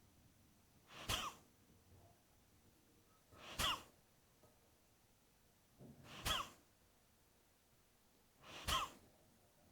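Kapalbhati breathing: forceful, sharp exhalations through the nose, with the chest squeezed on each stroke. Four puffs come at a slow, even pace, about one every two and a half seconds.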